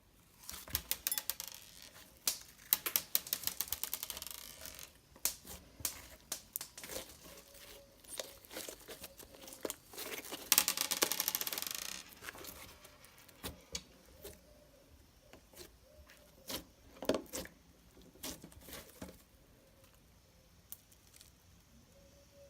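Slime being squeezed and stretched by hand, crackling and popping as air pockets burst. Two runs of dense fast crackling, about a second in and again around ten seconds, with scattered clicks and pops between, dying away over the last few seconds.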